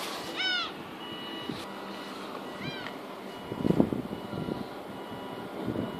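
Two short mewing calls about two seconds apart, each a brief arching whine. Faint high beeps repeat in the background, and a few low knocks come near the middle.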